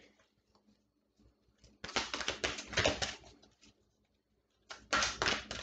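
A deck of tarot cards being shuffled by hand: two bursts of quick, rattling card flicks, each lasting a second or two, with a short pause between.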